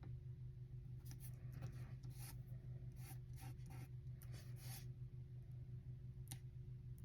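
Faint rustling and rubbing of paper cardstock being handled and pressed down by hand, in a series of short scrapes, over a steady low electrical hum.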